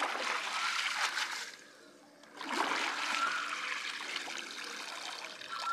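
Water trickling and splashing off a wet cast net as it is hauled up out of the water by hand, in two spells with a brief lull about two seconds in.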